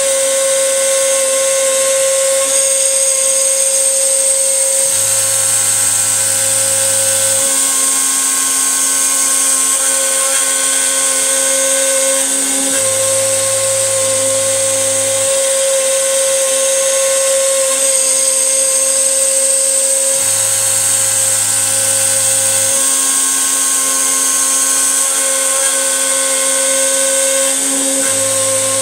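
X-Carve CNC router's spindle running with a steady high whine as its end mill cuts a groove through MDF. Lower motor tones change every couple of seconds as the machine turns each corner of the rectangular cut, in a cycle that repeats about every seven and a half seconds.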